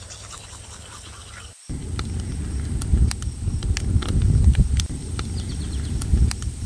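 Wood campfire crackling, with irregular sharp pops and snaps over a low, fluctuating rumble; the crackling starts after a short quieter stretch near the beginning.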